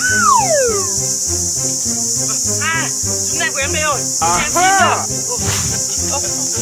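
Steady high-pitched insect drone, like cicadas or crickets, under background music with stepped bass notes. A falling glide sounds at the start and a run of quick rise-and-fall chirping glides comes in the middle.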